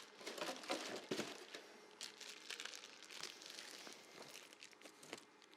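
Crinkling and rustling with light clicks and knocks of hands working at the table saw while the blade is being fitted. It is busiest and loudest about a second in.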